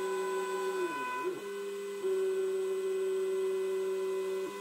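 Shop-built KRMx02 CNC router's spindle whining steadily while its bit cuts a rabbet in the end of a wooden drawer front. Its pitch sags briefly about a second in, then recovers, and the sound grows louder about two seconds in.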